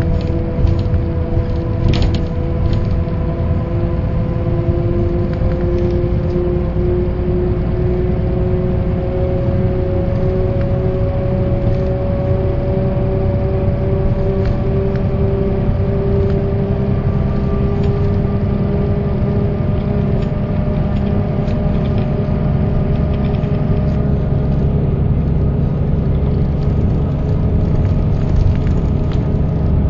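1995 Mercedes-Benz O408 bus under way: the OM447hLA diesel engine and drivetrain running with a steady low rumble, over which the hub-reduction axle's gear whine rises slowly in pitch and then levels off. A few rattles near the start.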